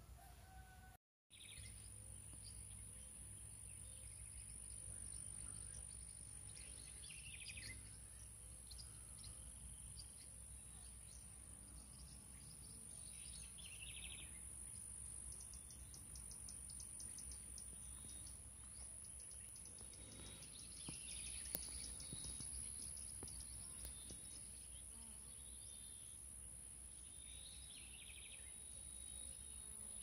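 Faint rural nature ambience: a steady high-pitched insect drone with scattered bird calls, including a rapid trill about halfway through.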